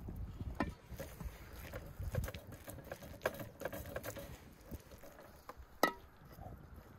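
Metal spoon scooping and spreading a wet, finely chopped liver, lung and greens filling from an enamel bowl: soft irregular squelches and scrapes. About six seconds in, the spoon strikes the enamel bowl with a sharp ringing clink.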